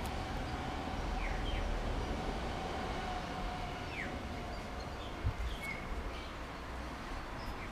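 Outdoor ambience: a low steady rumble with a faint steady hum that fades out about halfway, and scattered short bird chirps. A single thump about five seconds in.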